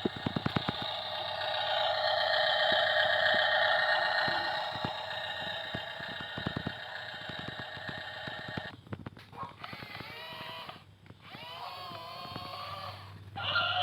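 Small electric motor and gearbox of a toy RC construction vehicle running with a steady whine and a clatter of clicks. After a short break about nine seconds in, the motor spins up several times in short rising whines.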